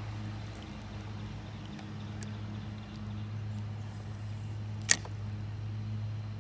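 One sharp click about five seconds in, most likely the bail of a spinning reel snapping shut after a cast, over a steady low hum.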